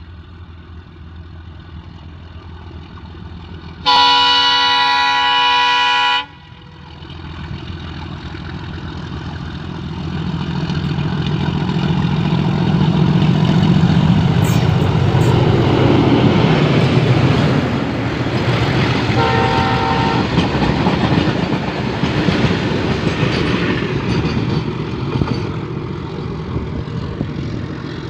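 Diesel locomotive hauling a goods train: a loud two-second horn blast about four seconds in, then the engine's rumble builds and drops in pitch as it passes, with a short second horn toot. The freight wagons roll past after it, slowly fading.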